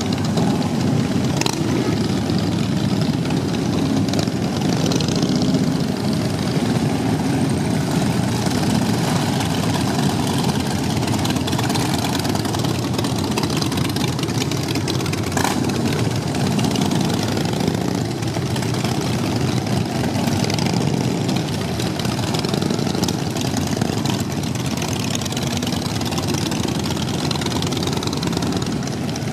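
Harley-Davidson V-twin motorcycles riding slowly past one after another in a continuous procession, their engines running steadily.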